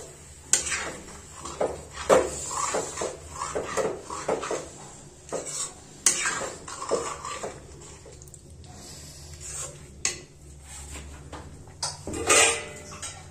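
Metal spatula scraping and clinking against a metal kadhai while stirring peas and potatoes in wet masala, with sharp knocks against the pan several times.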